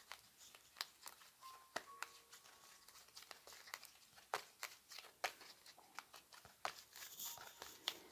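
A deck of tarot cards being shuffled by hand: quiet, irregular clicks and slaps of card on card.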